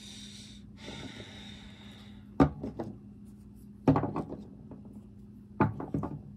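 Small plastic dropper bottles of paint set down one after another on a wooden workbench, making short clusters of sharp knocks, three times. Before the first knocks there is a rustling hiss of about two seconds, and a steady low hum runs underneath.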